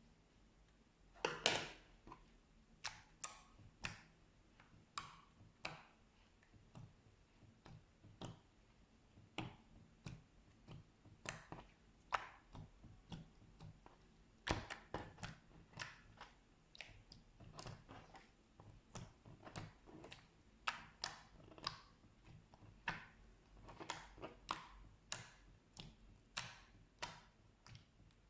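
Slime being pressed and worked by hand, giving a run of short, sharp clicks and pops at irregular intervals, about one or two a second.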